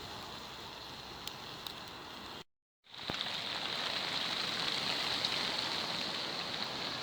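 Steady hiss of falling precipitation, with a few faint ticks. It drops out to silence for about half a second a couple of seconds in, then returns louder.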